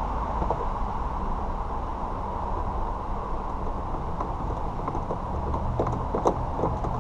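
Steady background rumble and hiss, with a few small clicks and scrapes from about four seconds in as a screw is worked out of a car's plastic door panel.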